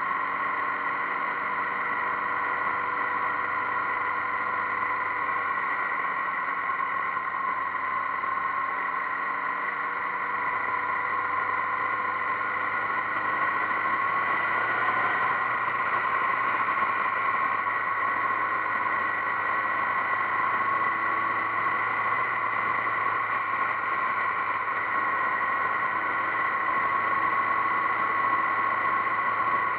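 Motorcycle engine running steadily at cruising speed, heard from on board the bike, over wind and road rush. The engine note shifts and grows slightly louder about halfway through.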